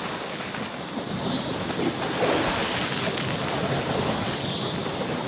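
Rushing outdoor wind noise that swells and eases like surf, strongest about two seconds in and again near the end.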